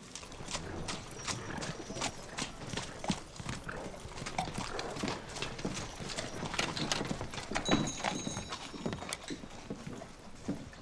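Horse hooves clip-clopping, a continuous run of hoofbeats on hard ground.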